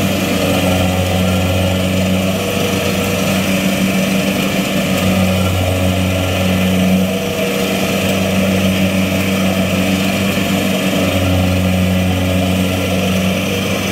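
Rice combine harvester's engine running steadily as the tracked machine crawls through deep mud and water; its low hum dips and comes back a few times.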